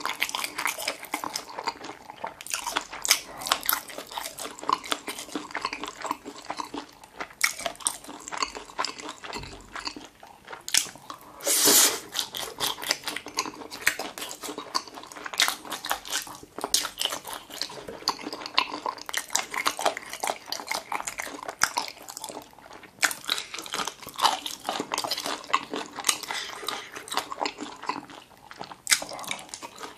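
Close-miked wet chewing of spicy boneless chicken feet: many small sticky clicks and smacks of the mouth in quick succession. One brief louder rush of noise about twelve seconds in.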